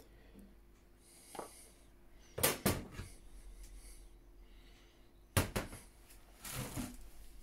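Metal spoons and a glass bowl being set down on a metal worktop: a couple of sharp clinks a little over two seconds in, another cluster about five and a half seconds in, then a short scrape.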